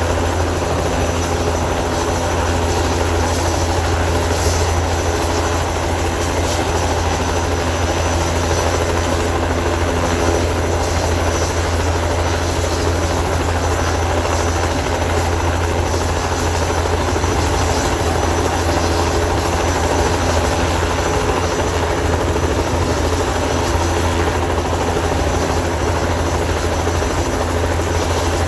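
Crop-spraying helicopter running steadily, a constant loud rotor and engine sound with a strong low hum that does not change.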